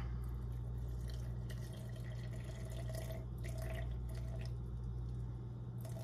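Water being poured slowly from a plastic cup into a glass jar of flour, trickling and dripping, over a steady low hum.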